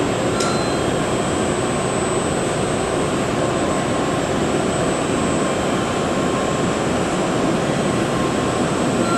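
N700S Shinkansen train standing at the platform, its cooling and air-conditioning fans giving a steady, even rushing hum, with a faint click about half a second in.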